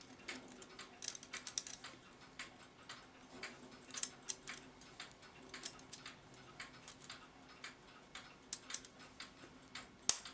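Irregular small metallic clicks and taps as the brass plates of a clock movement are pressed and wiggled together, the wheel pivots being worked into their holes; a sharper click comes just before the end as the plates go together. A faint steady hum sits underneath.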